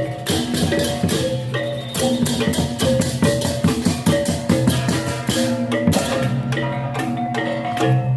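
Balinese baleganjur gamelan playing: bronze gong-chimes ringing in fast interlocking note patterns over sustained low gong tones, with rapid crashing cymbals throughout.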